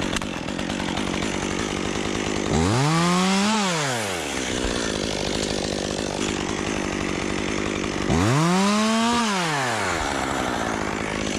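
Chainsaw running at idle, with the throttle opened twice for about two seconds each time, the engine pitch climbing and then falling back.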